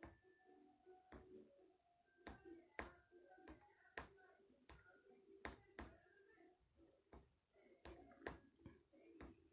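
Faint, sharp clicks, about a dozen at an uneven pace, as letters are typed one by one on a smartphone's touchscreen keyboard, pressed with a piece of brownie. A faint steady tone hums underneath.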